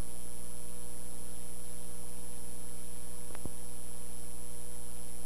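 Steady electrical hum on the tape's audio track, with a faint high whine above it. One short click comes a little over three seconds in.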